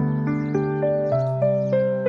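Calm instrumental background music: a melody of notes changing every few tenths of a second over low held bass notes.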